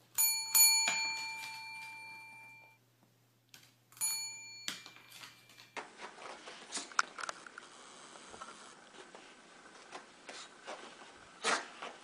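Desk service bell pressed by a dog: three quick dings that ring out for about two seconds, then two more about four seconds in that are cut short. After that, faint soft patter and taps of a kitten scampering on carpet.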